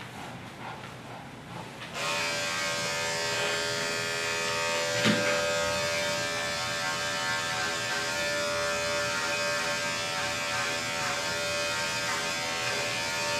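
Andis five-speed electric dog clipper switched on about two seconds in and running with a steady hum while clipping the dog's coat, switched off at the end. A short knock about five seconds in.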